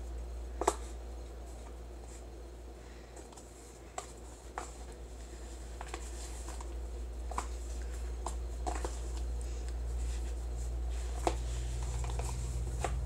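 Fingers mixing flour-and-baby-oil moon sand in a small plastic tub: soft rustling with scattered clicks and taps on the plastic, the sharpest near the start, over a steady low hum.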